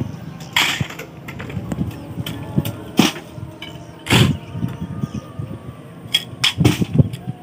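A shovel scooping sand and tossing it down into a trench: several separate scraping swishes, a second or two apart.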